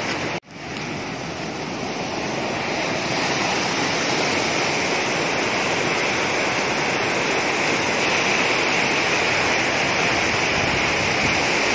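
Rain-swollen water rushing through a weir outflow and under a concrete causeway: a steady, even rushing noise, with a momentary drop-out about half a second in.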